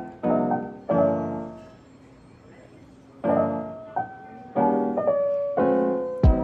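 Background piano music: slow chords, each struck and left to fade, with a quiet pause of about a second and a half partway through.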